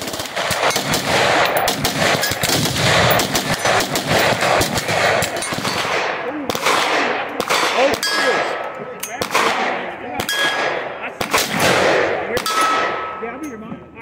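Gunfire from many guns on a busy shooting range, shots overlapping and echoing, with a run of loud shots in the second half. Steel targets ring briefly after hits several times.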